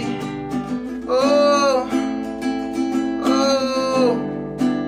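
Giannini acoustic guitar being strummed in a steady rhythm, while a man's voice sings two long held "oh" notes over it, about a second in and again past the three-second mark.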